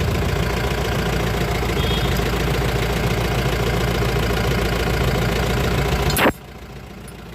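Mahindra Scorpio engine idling steadily. About six seconds in, a sharp click and the sound cuts off abruptly, leaving a much quieter background.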